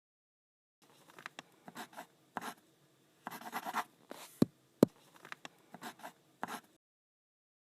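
Irregular short scratchy strokes, with two sharp clicks about halfway through.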